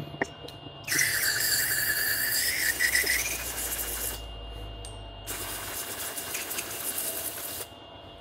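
Aerosol can of Freeze-Off penetrant spraying through its straw nozzle in two long hissing bursts, the first about three seconds with a faint whistle, the second about two seconds.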